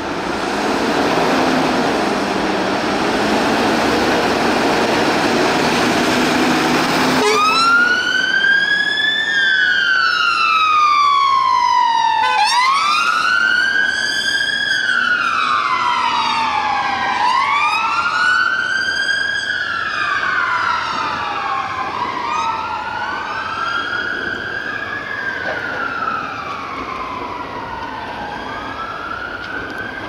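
A steady rush of vehicle noise, which changes suddenly about seven seconds in to emergency vehicle sirens on a slow wail. Each wail rises and falls over about five seconds, and in the second half a second siren wails alongside, out of step with the first.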